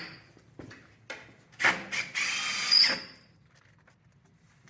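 A power drill or screwdriver runs in one short burst of about a second and a half, with a high whine near its end, after a couple of light clicks.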